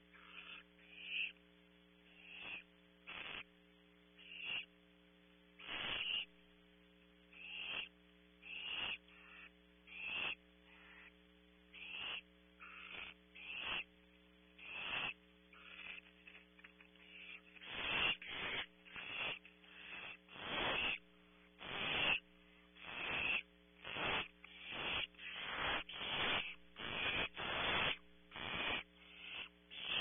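Barn owl nestlings giving raspy, hissing begging calls in short bursts, about one a second at first, then faster and louder from about two-thirds of the way through. A steady electrical hum runs underneath.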